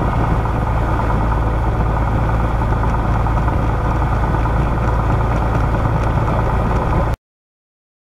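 A light single-engine propeller aircraft's engine runs steadily at low taxi power, heard from inside the cockpit as a constant low drone. The sound cuts off suddenly about seven seconds in.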